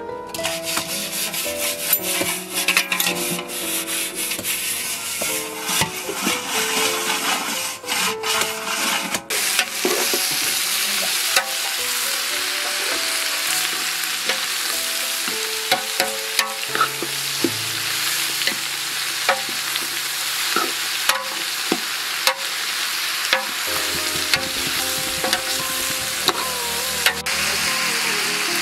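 Rooster meat frying and sizzling in a large aluminium pot while a metal ladle stirs it, with repeated short scrapes and knocks of the ladle against the pot. A quiet background melody plays underneath.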